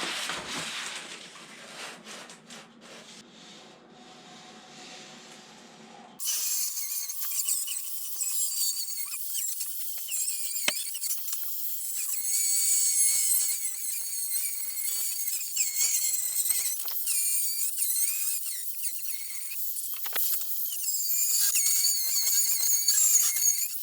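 A high-speed power tool cutting sheet steel, a shrill, wavering screech that starts abruptly about six seconds in and carries on, after a quieter stretch of rough noise.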